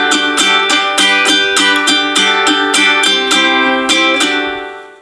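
Background music: a plucked-string tune with chords struck on a steady beat, about three strokes a second, fading out near the end.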